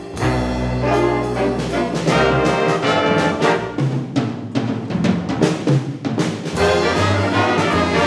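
A middle school jazz big band playing, with the brass section to the fore over a steady bass line.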